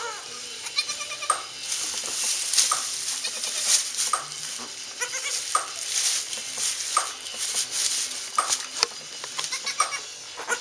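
Goats, a Saanen-type doe with her newborn kids, bleating softly in short calls about a second in, over rustling straw and a regular short sound about every second and a half as the doe licks a newborn kid clean.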